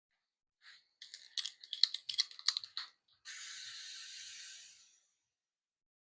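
A quick run of clicks and rattles as an air chuck is worked onto a bicycle tire's Presta valve, then a steady hiss of air for about a second and a half that fades away as the tire is inflated.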